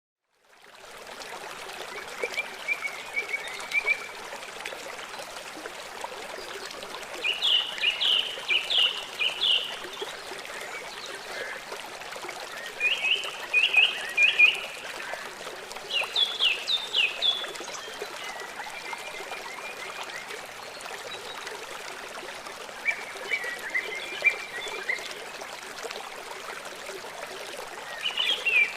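A songbird singing short phrases of quick notes, repeated every few seconds, over the steady sound of running water.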